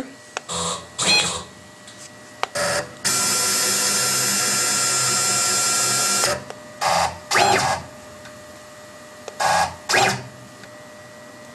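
CNC router's axis drive motors whining as the spindle head is jogged into position over the workpiece: a row of short jog moves, some rising in pitch as they start, and one steady move of about three seconds that is the loudest.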